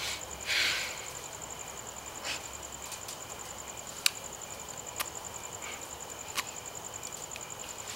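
Crickets chirring in a steady, high, finely pulsing trill, with a short breathy puff about half a second in and three faint sharp clicks later on.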